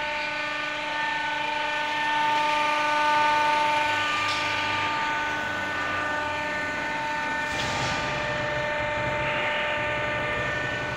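Roofing-sheet bending machine running: its electric drive motor gives a steady whine of several held tones. It grows louder with a low rumble about two to four seconds in, and a click near eight seconds brings in a deeper hum, as the machine's load changes.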